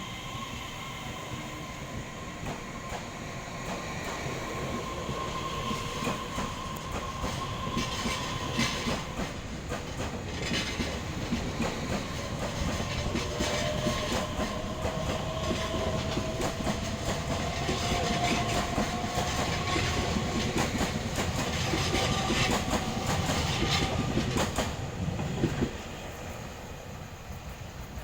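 Taiwan Railways EMU3000 electric multiple unit pulling out of a station and picking up speed: an electric whine slowly rising in pitch as it accelerates, with wheels clicking over rail joints, growing louder, then dropping away suddenly near the end.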